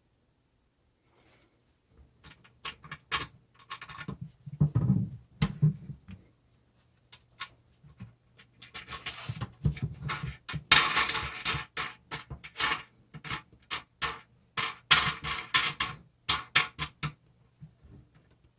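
Hard parts and tools being handled during a toilet flush valve repair: irregular clicks, knocks and scraping, with two louder runs of clattering noise in the second half.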